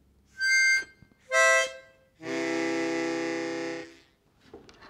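Harmonica played: two short high notes, then a long lower chord held for about two seconds.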